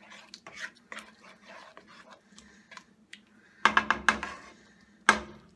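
Wooden spatula stirring a thick spinach sauce in a nonstick pan, with soft irregular scraping. About three and a half seconds in comes a quick run of loud knocks, the spatula against the pan, and near the end one more sharp knock.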